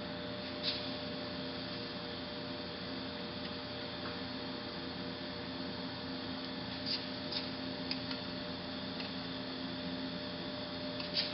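Steady background hum with a few light metallic clicks as a pump oil can's spout is pressed into a metal lathe's spring-loaded ball oilers: one click about a second in, a quick run of three around two-thirds of the way through, and one more near the end.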